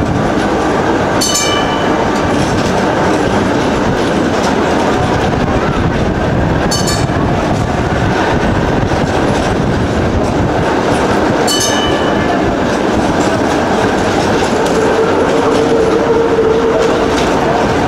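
Tram running along street track, heard from on board: a steady rumble of wheels on rail, broken by a few sharp metallic clanks. A steady whine rises over it in the last few seconds.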